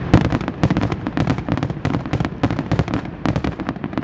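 Fireworks going off in a rapid, dense volley of sharp bangs and cracks, several a second, with no let-up.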